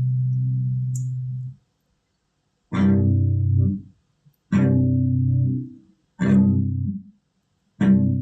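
Guitar music: a held low chord cuts off, then single strummed chords ring out one at a time with short silences between them.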